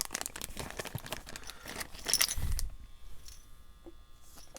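Handling noise: a rapid run of clicks and light clinks from small hard parts being handled, with one dull thump about two and a half seconds in, then only a few faint ticks.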